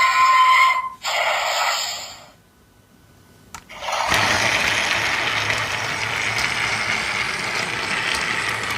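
Electronic sound effects from a Fisher-Price Thomas & Friends talking Diesel toy train: a pitched tone ends within the first second and a short hissing burst follows. After a brief pause broken by a click, a steady noisy rushing sound starts about four seconds in.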